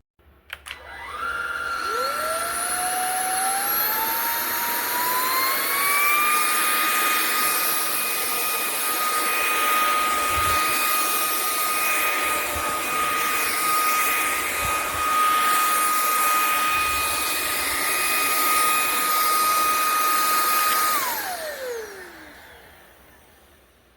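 SMOTURE cordless stick vacuum's brushless motor switched on with a click, its whine climbing in pitch over the first several seconds as it spins up. It holds a steady high whine with rushing air, then is switched off near the end, the pitch falling as the motor winds down.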